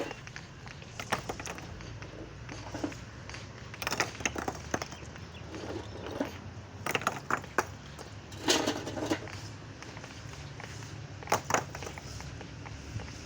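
Scattered clicks, knocks and clatters of small hard stones being handled, over a steady low hum.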